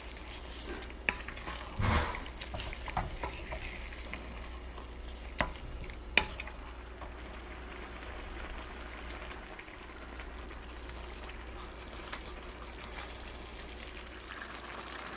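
Ground-beef tomato sauce cooking in a pot, a steady sizzle, while it is stirred, with a few sharp knocks of the utensil against the pot. The loudest come about two seconds in and about six seconds in.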